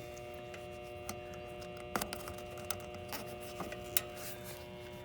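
Energized AC contactor giving a steady electrical buzz, with a few sharp clicks as spade quick-connect wire terminals are pushed onto a new run capacitor's terminals.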